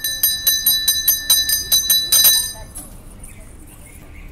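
A pooja hand bell rung rapidly, about six strikes a second, with a bright ringing tone. It stops a little under three seconds in.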